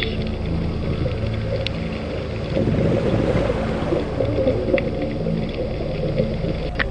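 Slow ambient background music of sustained low notes changing pitch, with a noisier rushing passage partway through.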